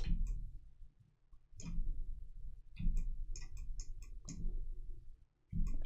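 Scattered clicks of a computer mouse and keyboard, a few at a time, over a low hum.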